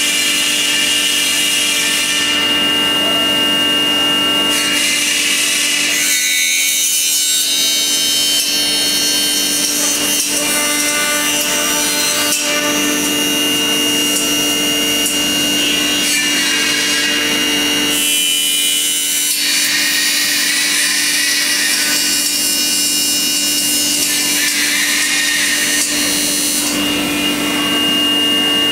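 Promax Falcon CNC machining centre's spindle driving a disc cutter through an aluminium profile to cut a 45-degree notch: a steady whine under a harsh cutting hiss that changes in strength as the cutter moves through the metal.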